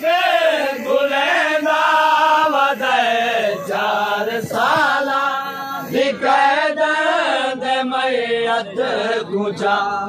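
A crowd of men chanting a Muharram noha (mourning lament) in unison behind a lead reciter, the sung phrases running on with only brief breaths between them.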